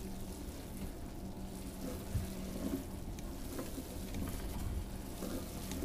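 Hand-cranked 15-pound meat mixer, its paddles turning through cold ground venison and beef fat in a stainless steel tub: a steady, soft churning of meat with scattered faint clicks.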